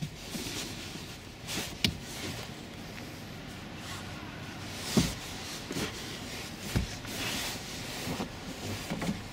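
Fabric-covered rear seat bench cushion of a Scion tC being handled and pressed into place: rubbing and shuffling, with a sharp click about two seconds in and dull thumps about five and seven seconds in.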